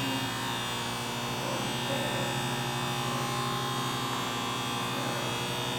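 Clearing Niagara 175-ton hydraulic press brake's 30 hp hydraulic pump and motor running with a steady hum.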